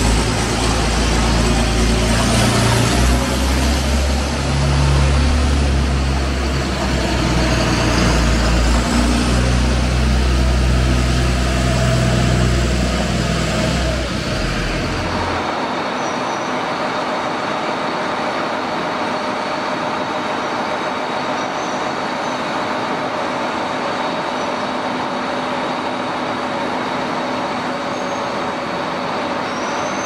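John Deere 4755 tractor's six-cylinder diesel running loud through an open exhaust stack as it pulls a loaded trailer. About halfway through, the deep engine sound cuts off and gives way to the steady running of potato conveyor belts carrying potatoes into storage.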